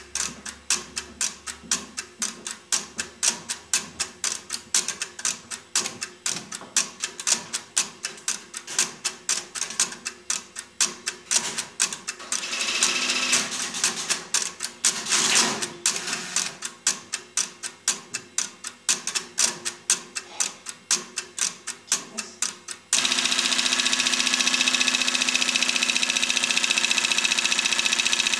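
Relays and crossbar switches of an NEC NC100 crossbar telephone exchange clicking and clattering as they switch, in a quick rhythm of about three clicks a second. Near the end a loud, steady ringing sound with several tones cuts in.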